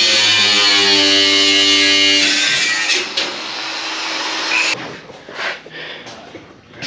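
Grinder cutting aluminium alloy hull sheet: a loud, hissing motor whine that cuts off suddenly about two-thirds of the way through, followed by a few quieter knocks.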